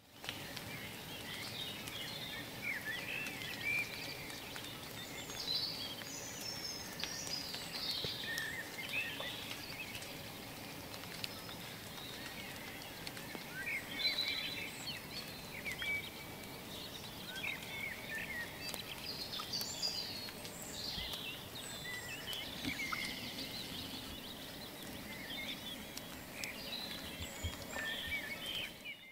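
Several small birds chirping and singing over a steady outdoor background noise.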